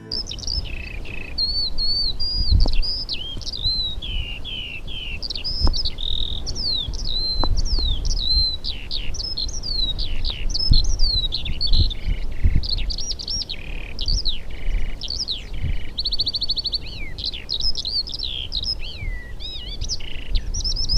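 Eurasian skylark singing: a long, unbroken stream of high, rapid, varied warbling and whistled notes, with a fast trill about two-thirds of the way through. A low rumble with occasional soft knocks runs underneath.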